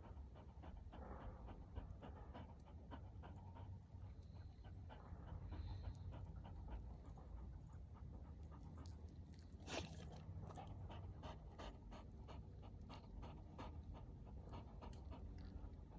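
Dog panting rapidly, with one sharper click about ten seconds in.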